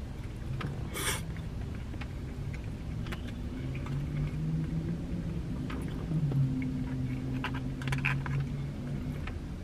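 Eating sounds: a plastic fork tapping and scraping in a foam takeout container, chewing, and a brief rustle about a second in, over a low steady rumble. From about four seconds in there is a low hum that shifts slightly in pitch.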